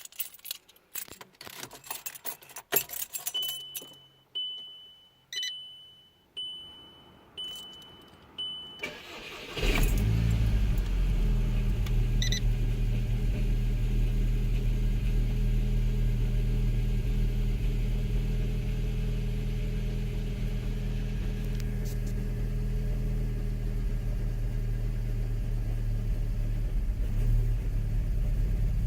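Keys jangling and clicking, then a dashboard warning chime beeping about once a second, then a VW Golf Mk5 GTI's turbocharged 2.0-litre four-cylinder cranks, catches about nine seconds in and settles into a steady idle. It is a cold start, with the rough idle that persists after new front and rear PCV valves were fitted.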